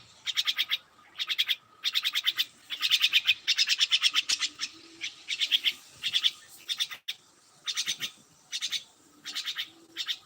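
Small birds chirping in rapid bursts of quick high notes, one short burst after another with brief gaps between.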